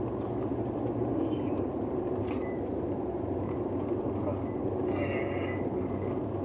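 Steady engine and road noise inside a moving car's cabin while cruising on an asphalt highway.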